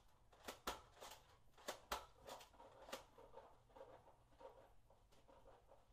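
Near silence in a small room, broken by a few faint sharp taps and clicks in the first three seconds.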